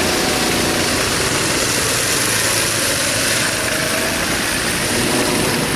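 Go-kart's small petrol engine running steadily as the kart drives close past.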